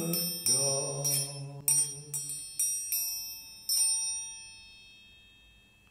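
A small handheld metal percussion instrument struck with a beater about half a dozen times, each stroke ringing bright and bell-like. The last stroke rings out and fades. A held sung note sounds under the first strokes.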